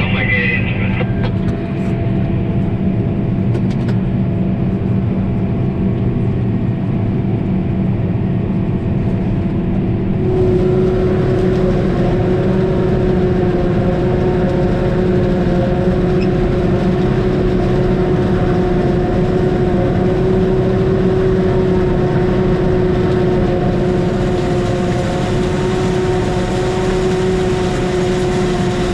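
Tractor engine running steadily under way, with a higher steady tone and more hiss coming in about ten seconds in and holding.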